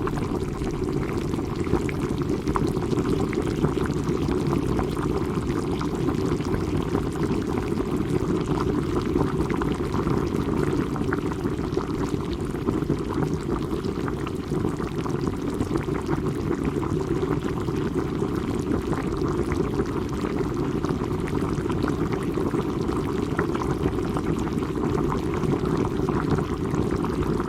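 Water boiling, bubbling steadily without a break: a deep low rumble under a constant patter of small pops.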